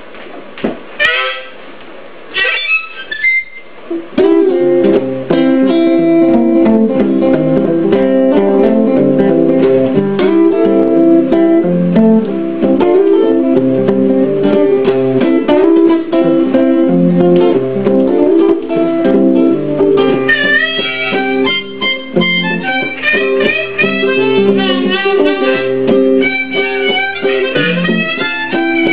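Instrumental intro of a folk song: guitar playing a steady accompaniment from about four seconds in, after a couple of brief sounds at the start. About twenty seconds in, a higher, wavering melody line joins it.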